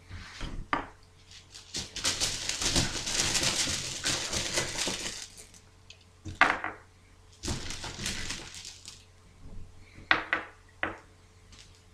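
Game dice clattering inside a cloth dice bag as a handful is drawn blind, in two long rattles. A few sharp clicks follow as the dice are put down on the table.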